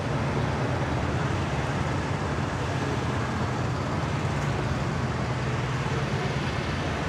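Steady low engine rumble under a constant haze of outdoor vehicle noise.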